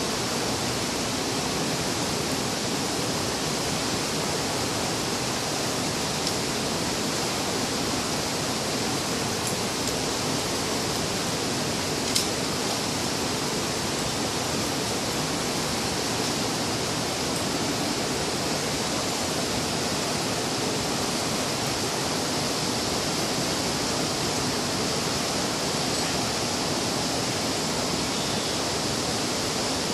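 Steady rushing noise like running water, unchanging throughout, with a single faint click about twelve seconds in.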